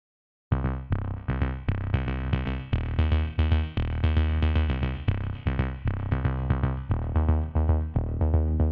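Background music with a steady beat and a deep bass line, starting abruptly about half a second in.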